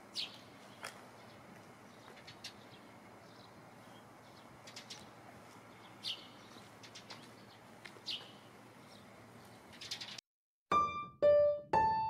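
Eurasian tree sparrows giving occasional short, high chirps over a faint steady hiss. Near the end the sound cuts off and a slow piano melody begins.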